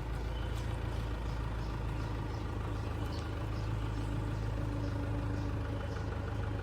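Engine of a crawler compact tractor running steadily with a low hum. Faint light ticks come about twice a second.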